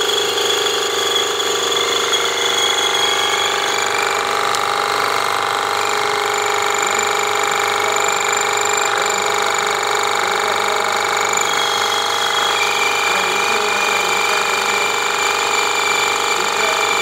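Keiser KT17999 crack-injection pump running steadily, a constant mechanical whine with a few high tones that shift slightly now and then, as it pushes injection chemical through the hose and packer into a concrete floor crack.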